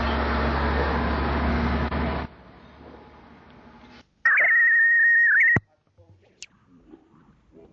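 Analogue videotape playback between recordings: a steady noise with a low hum cuts off abruptly about two seconds in. About four seconds in comes a steady high-pitched tone, wavering at its start and end, that lasts about a second and a half, followed by faint clicks.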